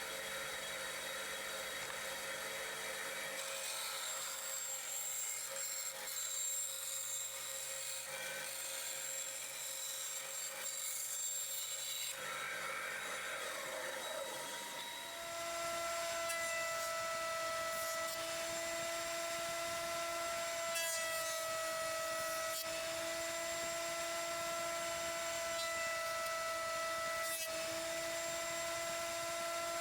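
A power tool working wood, running steadily throughout. About halfway through, a steady motor whine with several tones comes in.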